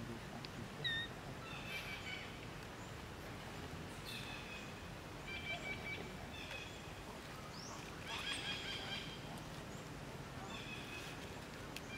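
Short, high-pitched animal calls recurring every second or two, one rising in pitch, over a steady outdoor background.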